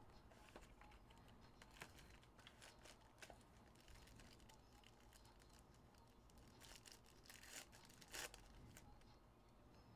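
Faint crinkling and tearing of a foil trading-card pack wrapper being opened by hand, in short scattered bursts, the loudest tears coming near the end.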